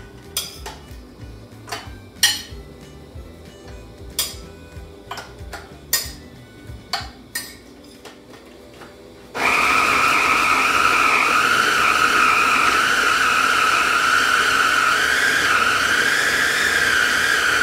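A spoon clicks against a plate and the chopper bowl several times as shrimp are scraped in. About nine seconds in, a small electric food chopper's motor starts suddenly and runs with a steady high whine, mincing the shrimp.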